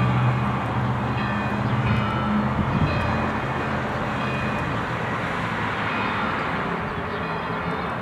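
Church bells ringing, each new stroke ringing out every second or two over steady street noise. A passing vehicle's low engine drone is loudest during the first three seconds, then fades.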